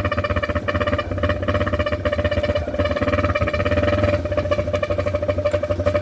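Dirt bike engine running at low speed, with an air horn jammed into its exhaust giving a steady honking tone of unchanging pitch over the engine's rapid low pulsing.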